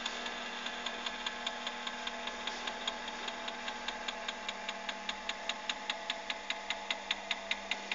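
Automatic paper drill-binder (KTM Robo Drill) running its binding cycle as the hot plastic rivet tube is applied: a steady motor hum with regular sharp ticking, about four ticks a second.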